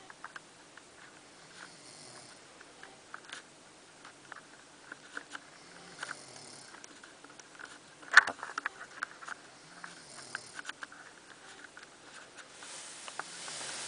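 A woman snoring in her sleep, with a breath about every four seconds. Scattered small clicks run throughout, and a sharp click about eight seconds in is the loudest sound.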